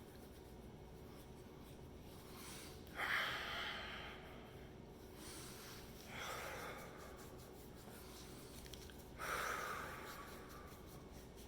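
A man breathing deeply, with a forceful exhale about every three seconds, three in all, each fading out.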